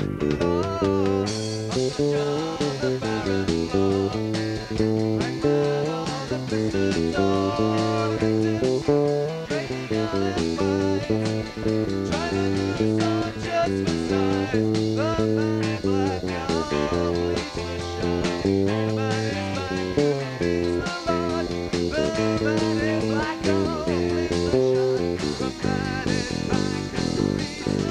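Rock band playing live in a cellar rehearsal space: electric guitar and bass guitar over drum hits, poorly recorded.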